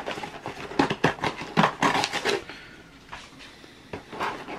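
Cardboard box and paper sheet being handled by hand: a run of rustles, scrapes and light knocks of cardboard, busiest in the first two seconds or so, quieter for a moment, then picking up again near the end.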